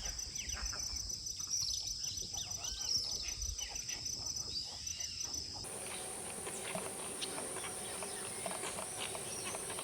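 Rainforest insect chorus: a steady high-pitched drone with scattered short bird chirps over it. About six seconds in, the drone shifts abruptly to a different, higher band.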